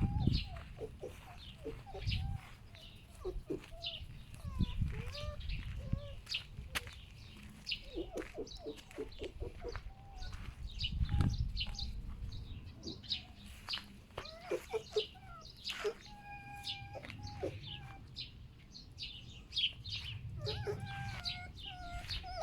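Foxes making repeated clucking, grunting calls, short pig-like grunts that come in quick runs, over gusts of low rumbling noise.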